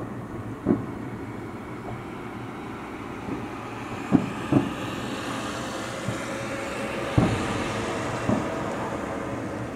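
Fireworks salute shells bursting about 7 km away, heard as dull, low booms: about five in all, one near the start, two close together a little after four seconds, and two more after seven seconds. They sound over a steady background rumble.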